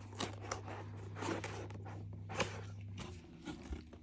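Cardboard kit box and packaging being handled: irregular scraping and rustling with a few sharp clicks.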